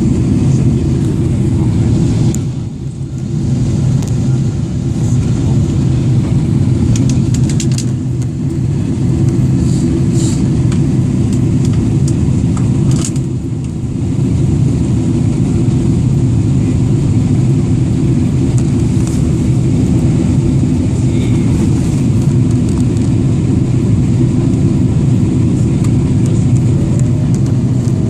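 Steady loud cabin rumble of a Boeing 777-300ER in flight on approach: engine and airflow noise heard from inside the cabin, easing briefly twice.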